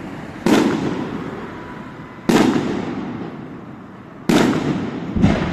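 Fireworks bursting overhead: four loud bangs, the first three about two seconds apart and the last close behind the third. Each bang trails off in a long rolling echo.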